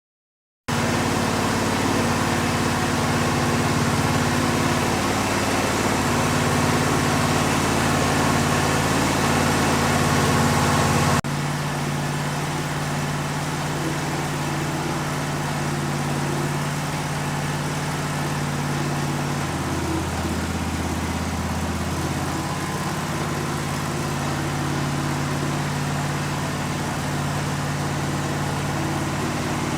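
A sawmill's engine running steadily at an even speed, starting up in the sound after a moment of silence; the sound shifts abruptly about eleven seconds in, as at a cut.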